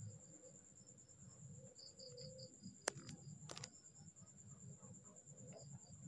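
Near silence: faint room tone with a thin, steady high whine, a run of faint short high chirps, and two sharp clicks near the middle.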